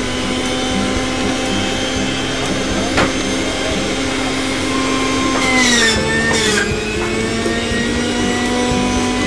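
Sujata electric juicer's motor running steadily as pineapple is juiced. About five and a half seconds in, its pitch sags and a rough grinding noise joins for about a second as fruit is pushed down onto the spinning cutter, then the motor picks back up.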